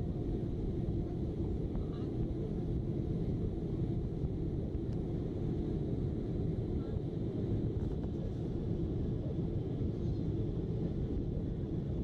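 Steady low rumble inside a jet airliner's cabin in flight: the wing-mounted jet engines and the airflow past the fuselage.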